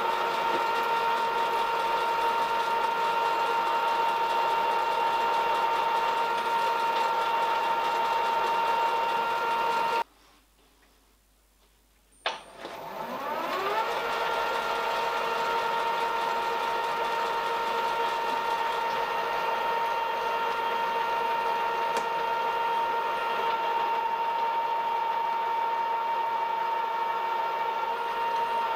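Milling machine spindle motor running at speed with a steady whine while a 3 mm drill bores through the bearing blocks. About ten seconds in it cuts off for two seconds of near silence, then spins up with a rising whine and runs steadily again.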